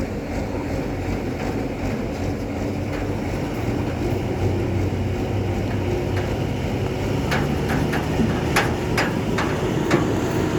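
Heavy diesel engine of earthmoving machinery running steadily, growing louder about four seconds in. A series of sharp metallic clanks and knocks joins it in the second half.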